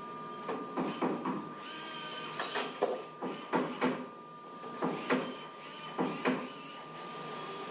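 Irregular knocks and clatter of wooden boards and panels being handled and set into a steel frame, about a dozen sharp knocks at uneven intervals, over a steady machine hum with a constant high tone.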